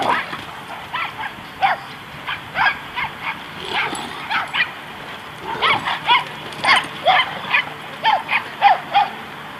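Great Danes giving short, sharp play barks in quick runs while they wrestle, thickest in the second half.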